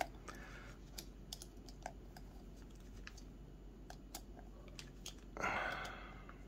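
Faint, irregular small clicks of a hand hex driver turning small metal screws while they are hand-tightened into an RC crawler wheel rim. A brief rustle comes about five and a half seconds in.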